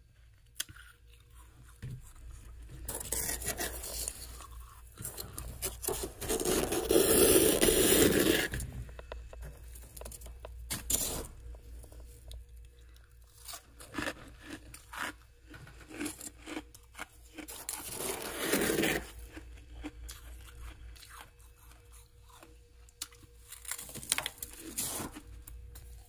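Fluffy humidifier-grown freezer frost being dug out and scraped, crunching. There are several long scraping passes, the loudest about seven seconds in and another near nineteen seconds. Between them come scattered smaller crunches and taps.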